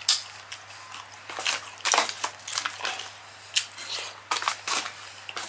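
Close-miked eating: chewing and mouth smacking with irregular sharp, crackly clicks as Cajun-sauced seafood is eaten by hand.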